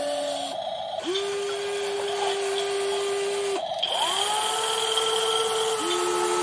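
WLtoys 16800 RC metal excavator's electric arm motors whining as the boom, arm and bucket move: a steady high whine that cuts out briefly about half a second in and again at about three and a half seconds, each time starting again at a slightly different pitch.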